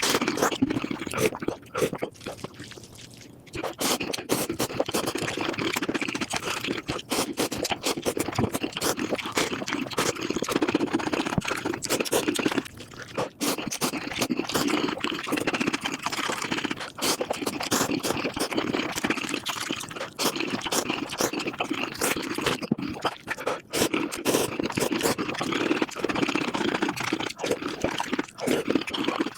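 Eating sounds sped up to five times normal speed: rapid, dense chewing, crunching and mouth clicks running together into a continuous crackle. The sound dips quieter briefly a couple of seconds in.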